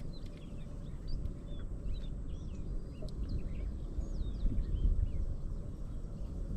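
Small birds chirping and calling repeatedly in short notes that slide up and down, over a low steady rumble.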